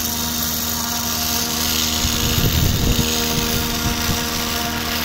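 Small 12 V brushed DC motor from a DVD drive, overdriven well above its rating, spinning a plastic propeller at very high speed: a steady high whine over a strong rush of air from the propeller. A brief low rumble comes about two seconds in.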